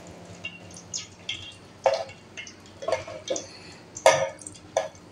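A metal slotted spoon clinks and scrapes against a pan as it stirs hot ghee around a frying gulab jamun ball, giving a series of irregular sharp clicks, the loudest about two and four seconds in.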